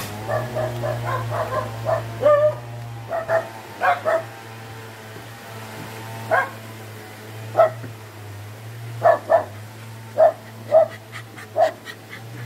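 Dogs yipping and barking in short, high calls, with drawn-out whining in the first couple of seconds. A steady low hum runs underneath.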